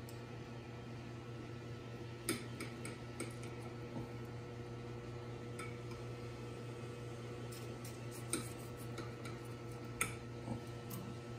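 Knife and fork clinking and scraping against a plate as cooked venison backstrap is sliced: scattered sharp clinks, the loudest about two seconds in and near the end. Under it, the steady hum of a running microwave oven.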